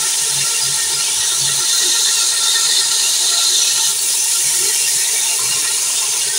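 Ginger-garlic paste sizzling in hot oil with fried onions and tomatoes, a steady hiss, while a spatula stirs it in the pan.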